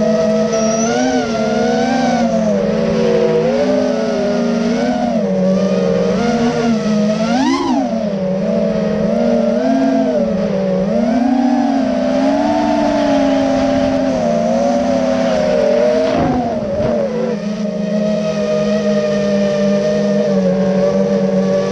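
FPV quadcopter's motors and propellers whining, the pitch wavering up and down with the throttle, with a sharp rise about seven and a half seconds in. From about seventeen seconds the whine settles to a steady pitch.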